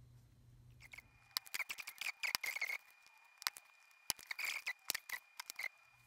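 Light, irregular clicks and short scrapes of a soldering iron tip and a hand solder sucker's nozzle working at solder joints on a circuit board, while desoldering a rotary switch.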